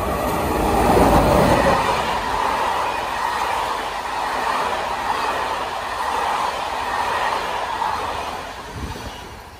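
Passenger train running past at close range: a steady rushing rumble of wheels on rail that fades near the end.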